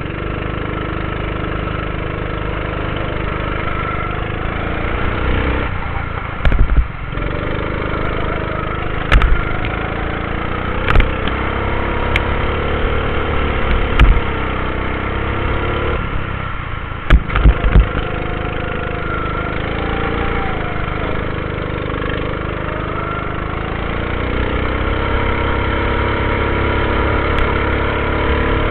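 Go-kart engine running hard as the kart laps a track, its pitch rising and falling through the corners. Several sharp knocks, the loudest sounds, come as the kart jolts over kerbs.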